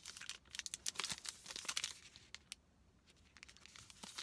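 Crinkly wrapper of a protein bar crackling as it is handled and turned over in the hands, in quick bursts for about two seconds, a short pause, then more crinkling near the end.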